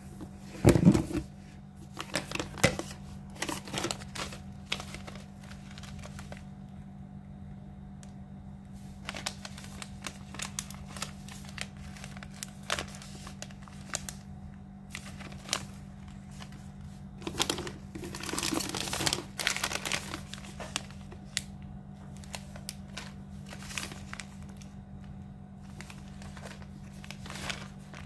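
Cat-food sachets crinkling and rustling as they are handled, in irregular crackly bursts. The bursts are loudest about a second in and again around two-thirds of the way through.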